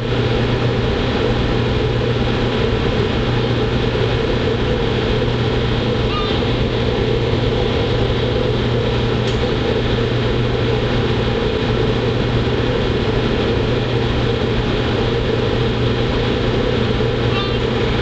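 Steady drone of a ship's engines and machinery heard from on board, a deep hum with a higher hum over it, unchanging throughout.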